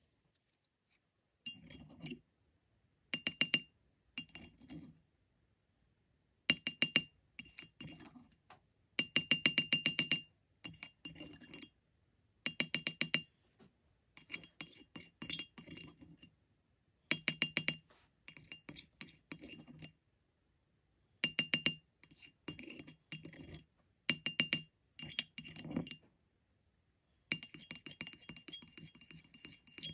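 A glass stirring rod tapping and clinking rapidly against a ceramic paint palette while mixing paint. The strikes come in short bursts of quick ringing clicks, a dozen or so bursts in all, separated by brief pauses.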